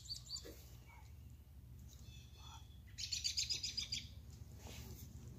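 A small bird chirping faintly: a quick run of short high chirps about three seconds in, lasting about a second.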